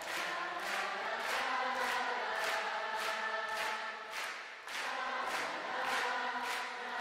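Concert audience singing a held melody together in unison, keeping time with steady rhythmic hand-clapping a little under three claps a second: an encore call.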